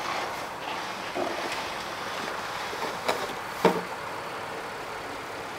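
Steady outdoor background hiss with a few short knocks or scrapes, the loudest about three and a half seconds in.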